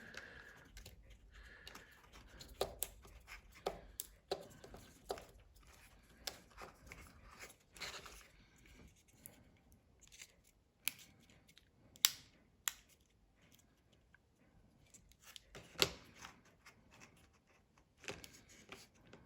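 Faint, irregular clicks, taps and short scratchy rustles of small tools and fingers handling iPhone 5S parts while the new battery is fitted. The sharpest clicks come about twelve and sixteen seconds in.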